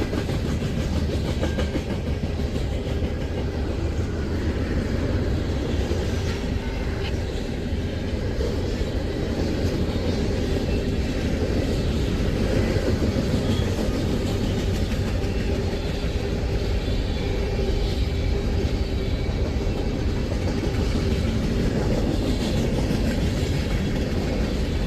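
Freight train cars rolling past close by, steel wheels rumbling steadily on the rails.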